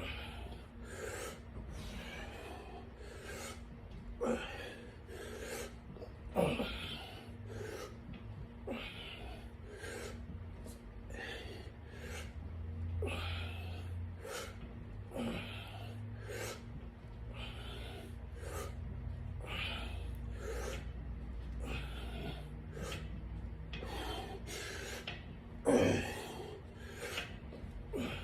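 A person breathing hard in a steady rhythm while doing sit-ups, with clothing rubbing on the floor, about one stroke a second. A few louder thumps stand out.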